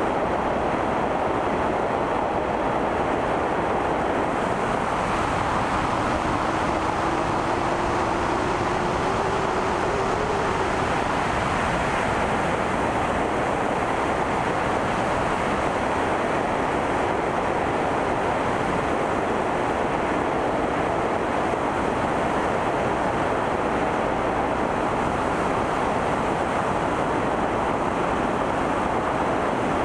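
Steady rush of airflow buffeting an externally mounted camera's microphone on an Aviat Husky light aircraft in level cruise, with the aircraft's engine and propeller running underneath. A faint, slightly rising whine comes and goes about a third of the way through.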